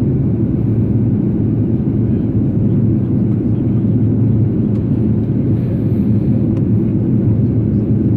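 Steady low rumble inside the cabin of an Airbus A330-200 airliner in descent: airflow and engine noise from its GE CF6-80E1 turbofans, unchanging throughout.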